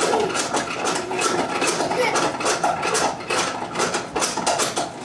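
Plastic pump-action egg-spinner toy clattering as it is pumped up and down to spin an egg for decorating: a quick, uneven run of small plastic clicks and rattles.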